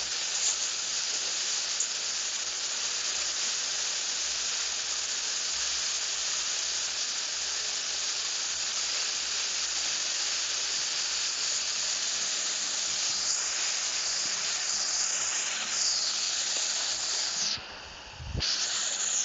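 Steady hiss of rushing noise, strongest in the upper range. It cuts out briefly near the end and then comes back.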